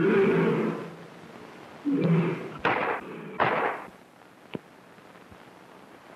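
A lion roaring and snarling in four short bursts, the last ending about four seconds in, followed by a single sharp click.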